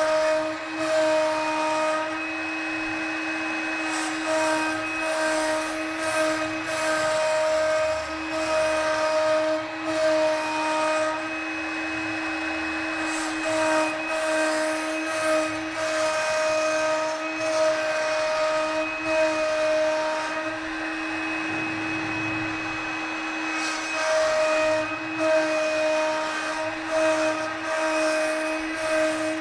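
CNC router carving wood: the spindle runs with a steady whine while the cutter's noise swells and eases every second or so as the tool moves through the wood.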